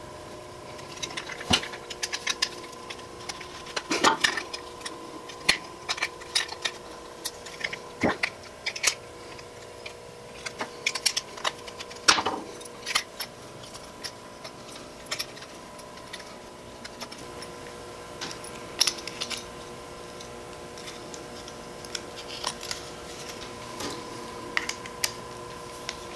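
Small clicks, clinks and knocks of hand tools and plug parts being handled while wire ends are fitted into a 220-volt plug's terminals and its screws are tightened, coming irregularly with a few louder knocks, over a faint steady hum.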